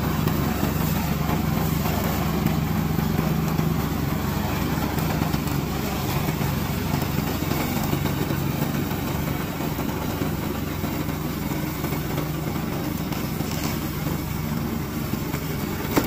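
Remote-control slope mower running steadily as it works through tall dry grass: a constant engine hum with a few low tones under a haze of noise.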